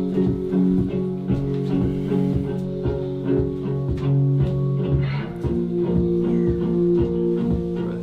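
Background music: a song with guitar over a steady beat, the chord changing about five seconds in.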